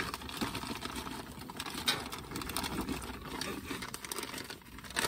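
Knife clicking irregularly against a wooden cutting board as raw chicken is sliced, with the rustle and crinkle of a plastic bag of frozen pepper and onion strips being handled.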